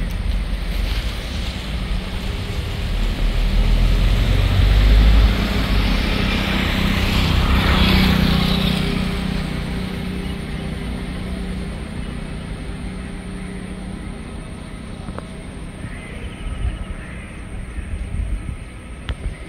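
Jet airliner's twin engines at takeoff power as it rolls down the runway and lifts off: a rumbling jet roar that swells to its loudest about eight seconds in, then fades steadily as the aircraft pulls away.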